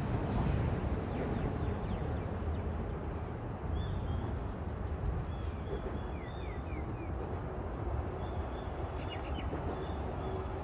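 Steady rumble of motorway traffic overhead, with small birds chirping in short repeated calls from about four seconds in.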